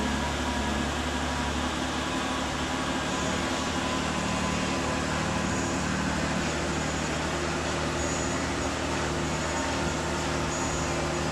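A steady mechanical hum with an even hiss and a few faint steady tones, unchanging throughout.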